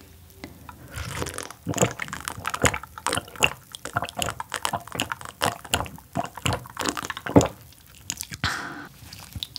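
Close-miked gulping as a drink is swallowed from a glass mug: a steady run of wet gulps and swallows, about two or three a second.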